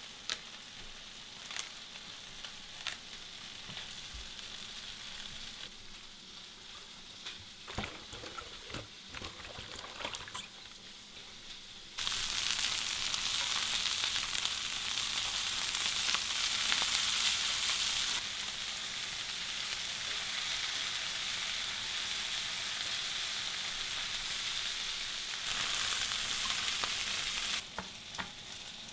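Chicken thighs and wings sizzling in coconut oil in a cast-iron skillet, with a few light clicks. The sizzle gets much louder about twelve seconds in, while the pieces are turned with tongs, and drops back near the end.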